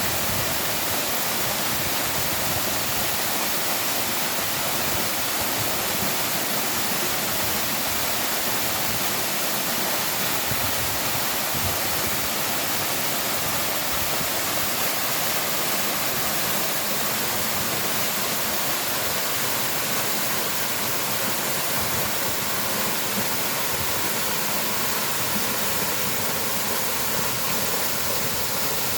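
A waterfall running: a steady, unbroken rush of falling water with an even hiss in the upper range and no change in level.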